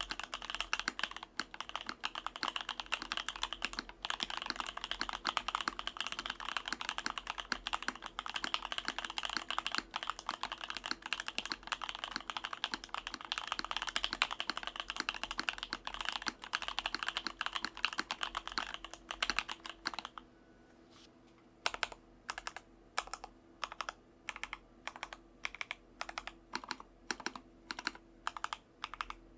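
J-02 mechanical keyboard with lubed Novelkeys Dry Black linear switches, a carbon fiber plate and EPBT keycaps, typed on quickly and steadily. About twenty seconds in, the typing stops briefly, then single keys are pressed slowly, about two a second.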